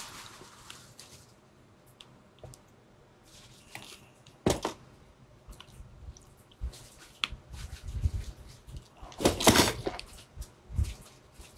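Quiet handling sounds of needle-nose pliers bending thin steel wire through a brass sleeve on a split ring: scattered faint clicks and small scrapes, with two louder short noisy bursts about four and a half and nine and a half seconds in.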